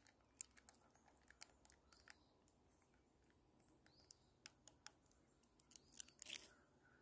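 Spoon stirring instant coffee in an enamel camp mug: faint, irregular clinks and taps against the mug, with a few louder ones near the end.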